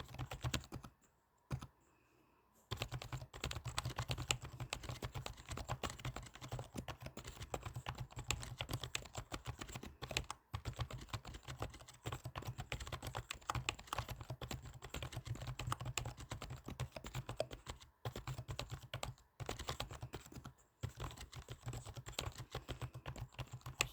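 Computer keyboard typed on quickly and steadily: a dense run of key clicks, broken by a pause of nearly two seconds about a second in and a few brief pauses later.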